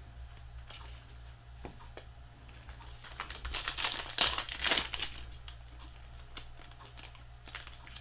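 Foil trading-card pack wrapper being crinkled and torn open, with a louder stretch of crinkling about four seconds in, over a steady low hum.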